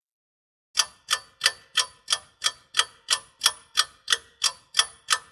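Clock-ticking sound effect, an even train of sharp ticks at about three a second, starting just under a second in. It is a timer effect marking thinking time for a quiz answer.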